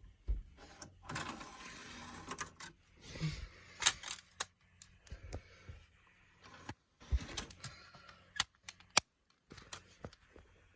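Scattered sharp clicks and knocks, with a stretch of rustling about a second in.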